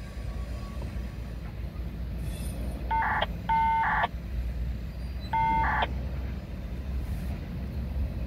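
A multi-chime horn, most likely a locomotive air horn, sounds three short blasts: two close together about three seconds in, the third about two seconds later. A steady low rumble runs underneath.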